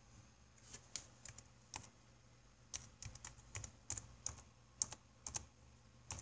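Typing on a computer keyboard: a run of quick, irregular key clicks that starts about a second in.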